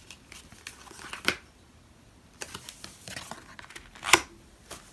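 Oracle cards being handled and drawn from the deck by hand: soft rustling of the card stock, with sharp clicks about a second in and again about four seconds in as a card is pulled and laid down.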